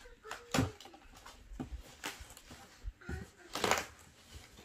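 Handling noise from a large cardboard box: scattered knocks and rustles of cardboard and packing material as hands rummage inside it, with a louder burst of crinkling about three and a half seconds in.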